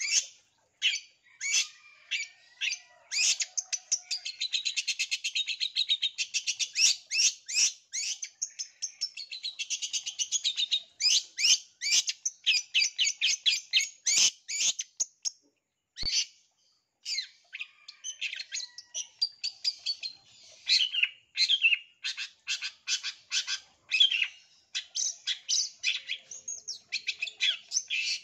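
Long-tailed shrike (cendet) singing hard: a fast, continuous run of sharp chattering notes and rapid trills, with a brief pause a little past halfway.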